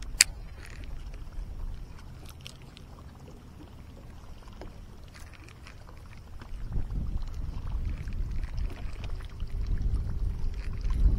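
A sharp click just after the start, then water sounds around a fishing boat, with a low rumble that grows louder about halfway through and a faint steady hum near the end.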